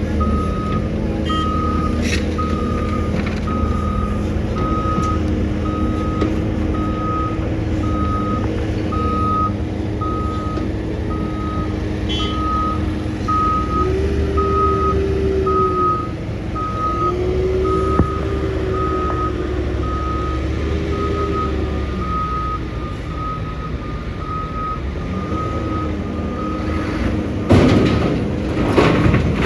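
Reversing alarm on heavy earthmoving machinery beeping steadily, about once a second, over a diesel engine running, its revs rising and falling several times midway. The beeping stops near the end, where a few loud noisy bursts come.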